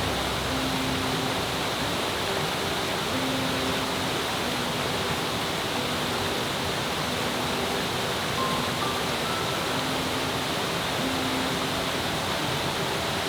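Soft background music of slow, held notes over a steady rushing noise like a mountain stream.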